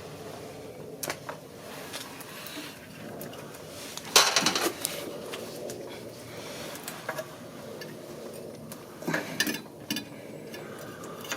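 Metal tools and parts clinking and knocking as they are handled, in a few scattered groups, loudest about four seconds in and again near nine to ten seconds.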